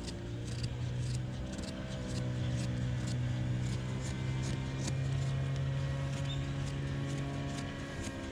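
Background music: a held low chord that shifts partway through, over a light, evenly ticking beat.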